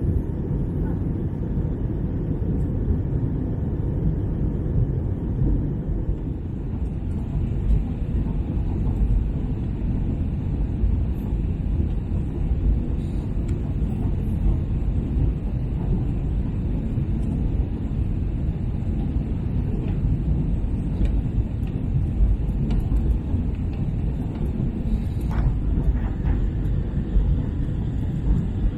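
Steady low cabin rumble inside an Airbus A321-200 airliner: engine and airflow noise, with a faint knock near the end.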